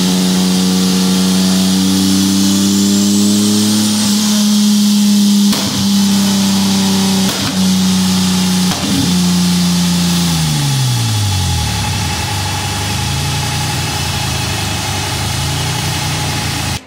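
Turbocharged Nissan 300ZX (Z31) engine running on a chassis dyno, held at a steady rpm for about ten seconds; then the revs fall away and rise and fall gently a few times. A few short clicks sound over it.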